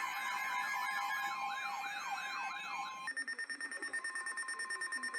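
Electronic siren warbling, its pitch rising and falling about three times a second. About three seconds in it switches to a rapidly pulsing steady alarm tone.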